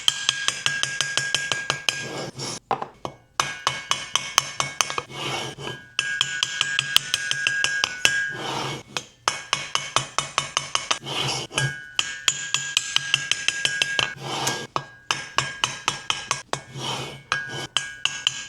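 Rapid, regular metallic clicking, several clicks a second in runs with short pauses, as a rust-stuck exhaust valve is worked back and forth in its guide in a 1964 Norton Atlas cylinder head; the valve is still seized.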